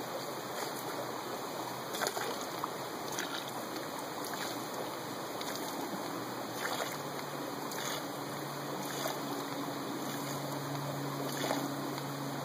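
Stream water running steadily, with faint clicks repeating about once a second.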